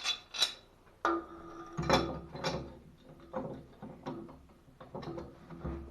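Metal tools and pipe fittings being handled during plumbing work: a run of clicks and knocks, some with a short metallic ring.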